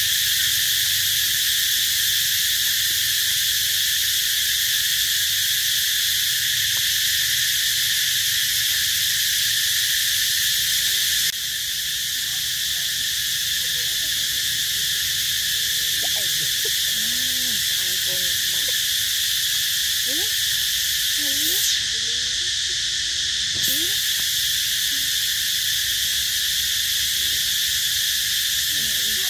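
A loud, steady insect chorus: a dense, high-pitched drone that carries on without a break. Faint short gliding calls sound underneath it in the middle.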